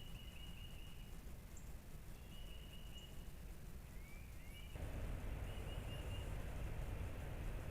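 Birds calling in short, repeated high chirps and small up-and-down notes over a steady low rumbling background; the background noise jumps suddenly louder about five seconds in.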